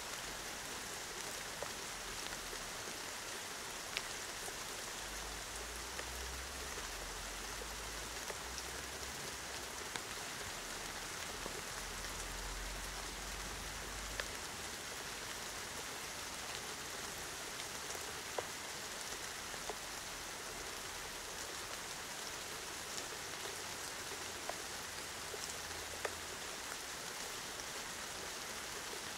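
Steady rain falling in an even hiss, with scattered sharp ticks of drops striking close by and now and then a faint low rumble.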